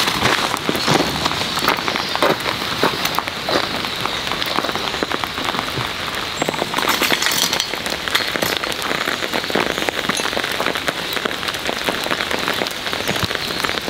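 Heavy rain falling steadily, a dense hiss full of close, sharp drop hits.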